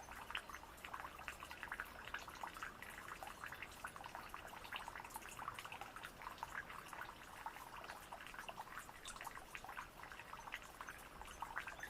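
Small self-built garden waterfall running: water splashing and trickling in a steady, dense patter of small drips and splashes.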